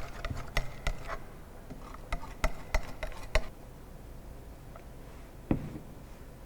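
Irregular light clicks and taps of lab equipment being handled, likely the glass plate used for the plastic limit test, with one louder knock about five and a half seconds in.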